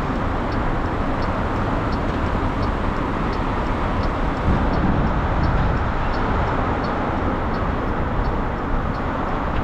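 Steady wind and road noise while riding an electric motorcycle, with a faint ticking about twice a second.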